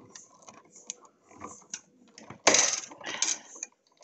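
Hand-cranked die-cutting machine turned by hand, its rollers pressing a cutting-die sandwich through thick paper with light clicking and ticking, then a louder clatter about two and a half seconds in.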